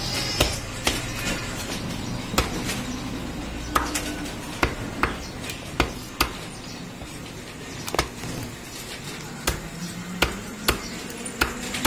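A heavy butcher's cleaver chopping goat meat on bone on a wooden log chopping block: about a dozen sharp, irregularly spaced chops, roughly one every half second to second and a half.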